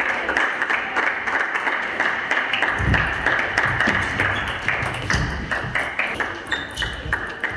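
Table tennis ball clicking back and forth off the bats and the table in a long rally, several sharp clicks a second, over a steady hiss of hall noise with a few low thuds.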